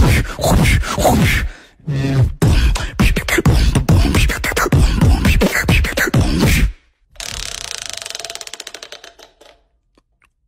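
Beatboxing into a close microphone: a run of rapid mouth-made drum hits and vocal sound effects. Near the end, a few seconds of fast ticking slows down and stops: the prize wheel's pointer clicking over its pegs as the spin winds down.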